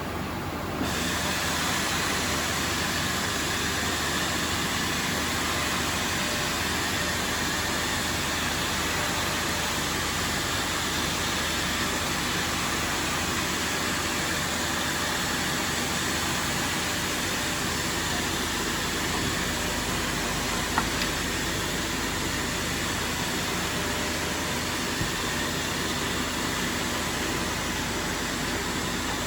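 Bottero Variant 810BCS vertical glass edging machine running with a steady mechanical noise that gets louder about a second in.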